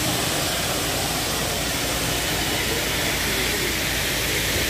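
Heavy diesel machinery of a ready-mix concrete pour running steadily: the boom pump truck and mixer give a constant low engine rumble under a broad hiss.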